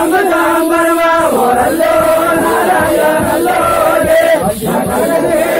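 A group of men singing a folk chant together, loud and dense with held notes, amid a crowd: a Tappeta Gullu song.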